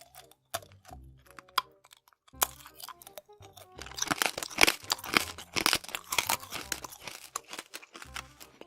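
Close-miked mukbang eating sounds: crisp crunching and crackling, densest in the middle, over background music with a soft low beat.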